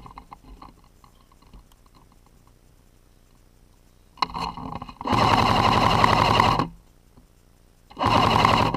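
AK-style airsoft rifle firing on full auto: a long burst of about a second and a half, then a shorter burst near the end, each a fast, even rattle of shots.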